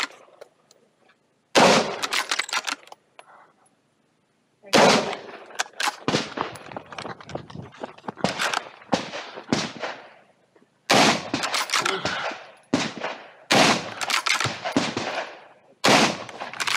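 Templeton Arms T1000 12-gauge shotgun fired repeatedly at close range. The shots come in quick runs of several, with short breaks between the runs: the first shot about a second and a half in, a longer stretch from about five to ten seconds, and further runs near the end.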